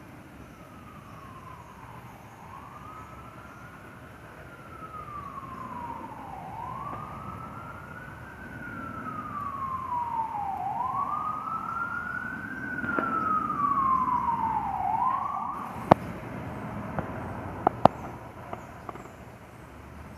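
Emergency vehicle siren on a slow wail, each cycle rising quickly and falling slowly about every four seconds, growing louder and then cutting off about three-quarters of the way through. A few sharp clicks follow.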